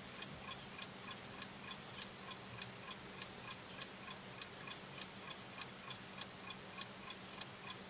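Faint, even ticking, about three ticks a second.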